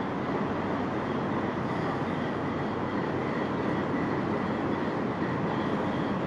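Steady, unbroken rumble and hiss of an inland barge's engine running while under way.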